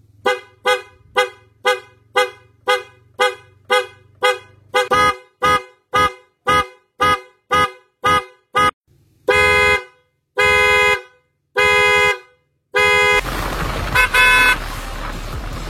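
A pair of PIAA OTO style snail horns sounding in quick taps, about twenty short beeps at roughly two a second. Then three longer blasts of about a second each, and near the end one short beep over a steady rush of noise.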